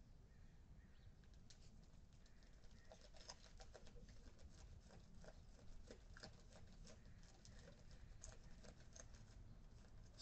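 Near silence: faint outdoor background with a scatter of faint short clicks and chirps.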